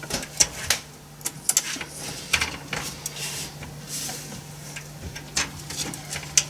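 Irregular sharp metallic clicks and small scrapes of hands working a graphics card and its bracket screws in a PC case, over a steady low hum.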